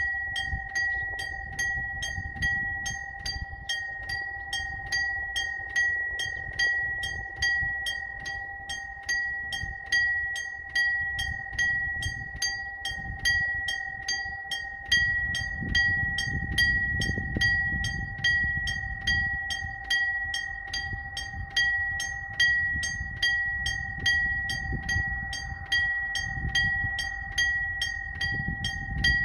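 Railway level-crossing warning bell ringing steadily, about two strikes a second, warning of an approaching train. Underneath, a low engine rumble swells in the middle and again near the end.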